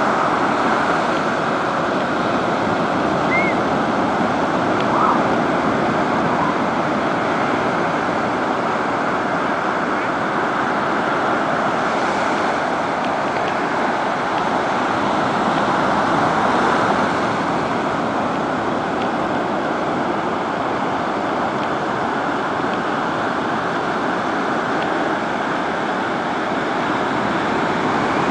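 Ocean surf breaking and washing up on the shore, a steady rushing that never lets up.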